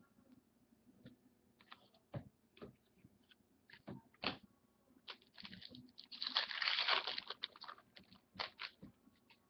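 Trading cards and foil pack wrappers being handled: scattered light clicks and rustles, with a longer, louder crinkling rustle about six to seven seconds in.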